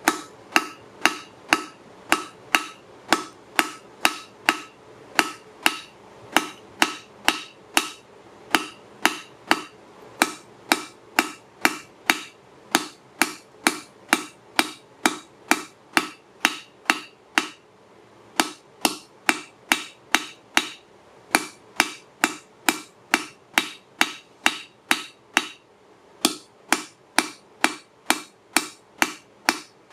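Hand hammer striking a red-hot railroad spike held on a steel anvil, about two blows a second in runs with brief pauses, each blow ringing. The steel spike is being forged hot.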